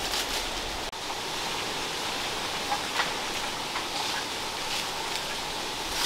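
Steady, even hiss of outdoor forest ambience, with a brief cut-out about a second in and a few faint ticks near the middle.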